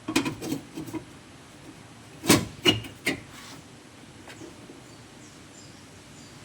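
Knocks and clanks of a loose sheet-steel repair panel being set back into place on a car's boot floor: a few light knocks at first, then two louder knocks a little over two seconds in and another about a second later.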